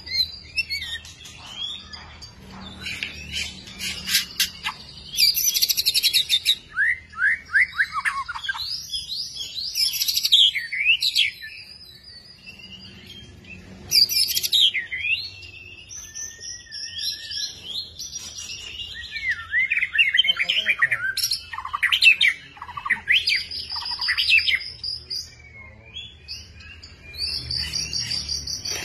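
White-rumped shama singing: a varied song of clear whistles, quick rising and falling notes and rapid trills, delivered in phrases with short pauses between them.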